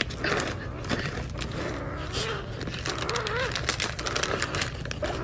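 Crinkling of a plastic cat-treat pouch as a kitten grabs and bites at it: a steady run of crackles and rustles.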